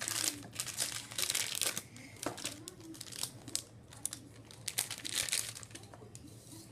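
Crinkling and tearing of a shiny foil My Little Pony blind bag being opened by hand, in a run of crackly bursts. They are heaviest in the first two seconds and again about five seconds in.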